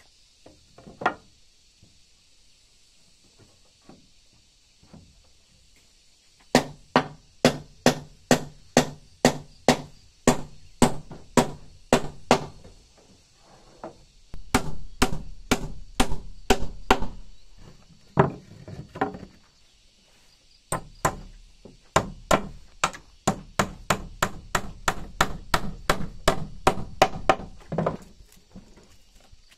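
Claw hammer driving nails into wooden planks, struck in quick runs of about three blows a second with short pauses between the runs.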